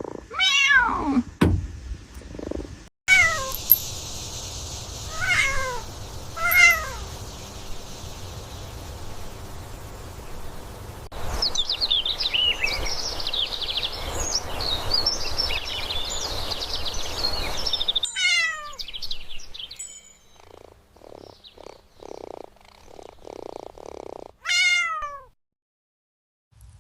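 A cat meowing about six times, each meow falling in pitch, in short pieces separated by abrupt cuts. In the middle there is a stretch of fast, high chirping over a steady hiss.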